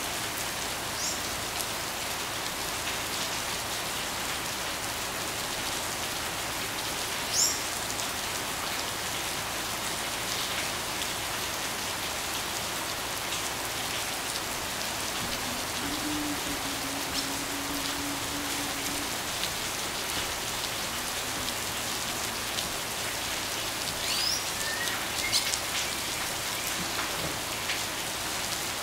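Steady rain falling, an even hiss throughout, with a few short, high chirps breaking through now and then.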